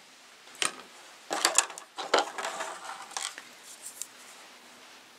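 A series of short clicks, taps and scrapes from handling small containers and tools while measuring out and mixing a batch of Hydrostone plaster with water.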